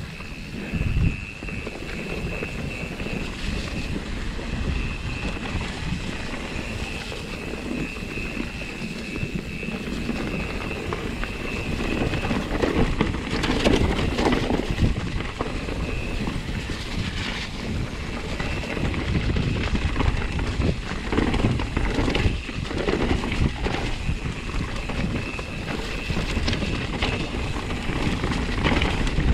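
Mountain bike riding down a rough trail: tyres rumbling over the ground and the bike rattling over bumps, with wind on the microphone. A thin, steady high-pitched whine runs through the first dozen seconds and returns briefly near the end.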